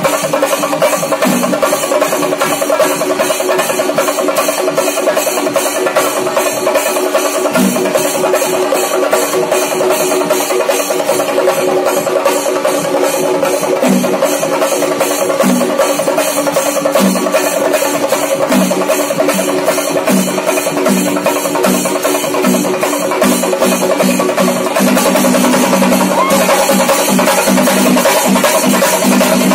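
An ensemble of Kerala chenda drums beaten with sticks: rapid, continuous strokes from many drummers together, with deeper accents coming more often from about halfway through. The playing gets a little louder near the end.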